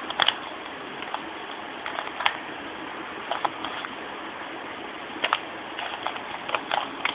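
Rubik's Cube faces being turned by hand: short plastic clicks and clacks, single and in quick clusters at an uneven pace, over a steady background hiss.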